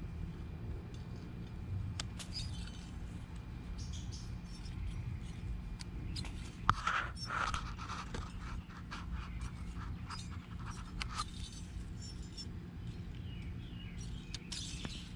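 Garden shears snipping habanero pepper stems among rustling leaves: a scatter of short, sharp clicks, the loudest about seven seconds in, over a steady low background hum.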